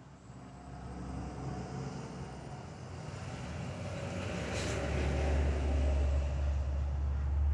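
A passing vehicle's rumble, swelling gradually over several seconds and loudest near the end.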